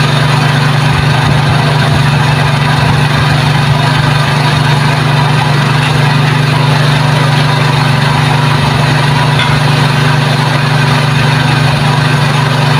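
Portable drum concrete mixer running steadily at a constant pitch, a loud unbroken drone with a strong low hum, while it is being loaded.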